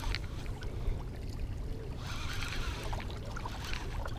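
Water lapping and trickling against the rocks at the water's edge, over a steady low rumble.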